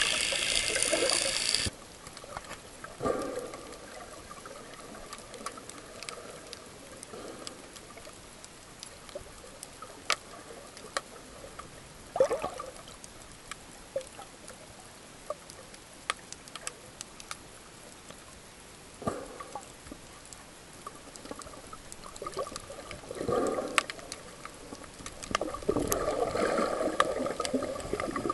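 Underwater sound around a diving snorkeler: churning water at the surface cuts off suddenly as he goes under, then a quiet hiss with scattered faint clicks and a few short swishes of water and bubbles, growing louder and busier with bubbles near the end.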